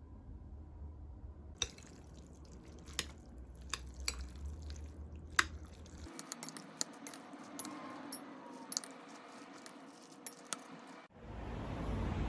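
Scattered light clinks and taps, a dozen or so, over a low background hum. The background changes abruptly about six seconds in and again near the end.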